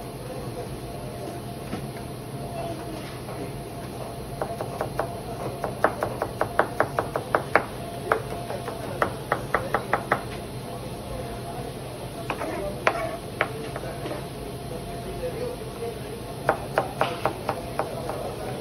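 Knife chopping on a cutting board in quick runs of strokes, about four to five a second, with pauses between the runs. A steady low hum sits underneath.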